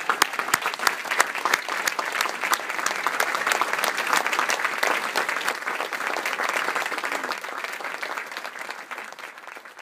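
Large audience applauding: dense, steady clapping that gradually tapers off near the end.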